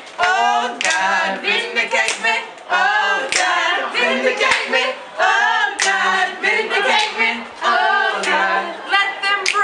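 Voices singing a capella, with held notes and a few sharp hand claps or snaps.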